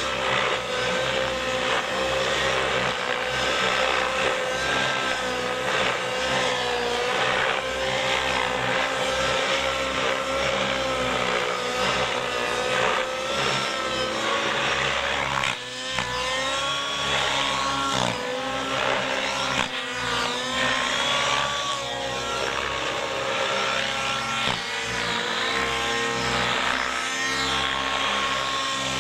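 Align T-Rex 700 radio-controlled helicopter's YS 91 nitro engine and rotors in flight: a loud engine whine whose pitch keeps rising and falling as it passes and changes speed.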